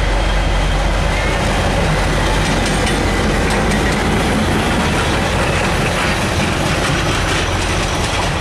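Diesel locomotive running light, with no coaches, passing close by: a loud, steady engine drone with a deep hum, and the rattle and clicks of its wheels on the rails.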